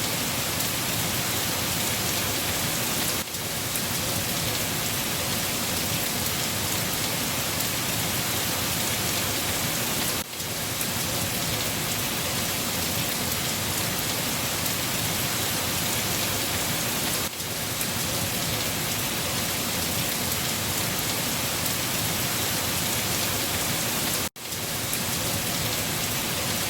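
Steady heavy rain falling and pattering on surfaces, an even dense hiss with no lull. The sound dips briefly about every seven seconds.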